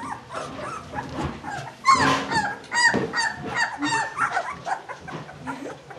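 Young puppies whining: a string of short, high-pitched calls in quick succession, loudest about two seconds in.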